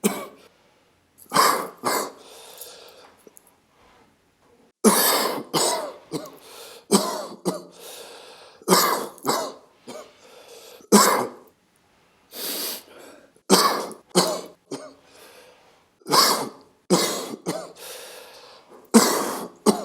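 A person coughing over and over: short sudden coughs, often in quick pairs, with pauses of a second or two between bouts.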